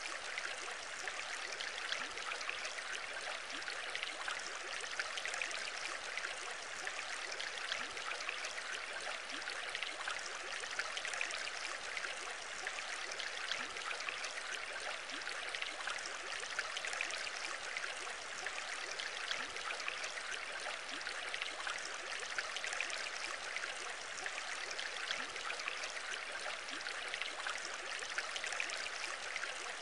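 Aquarium water bubbling and trickling steadily, a dense patter of tiny bubble pops from the tank's aeration.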